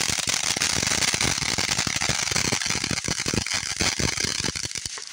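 Ground fountain firework spraying sparks: a steady loud hiss full of rapid, dense crackling, which drops off sharply at the very end as the fountain dies.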